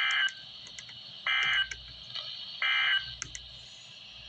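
Three short, identical bursts of buzzy digital data tone, about a second and a quarter apart: the Emergency Alert System (SAME) end-of-message code sent by a weather radio transmitter, signalling that the alert message is over.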